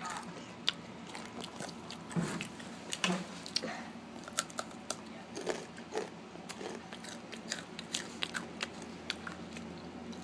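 Takis rolled corn tortilla chips being crunched and chewed close to the microphone: an irregular run of short, sharp crunches, several a second.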